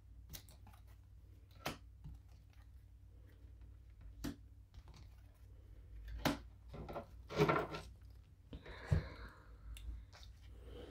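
Reading cards being handled and laid out on a table: scattered light clicks and slaps a second or more apart. A steady low hum runs underneath.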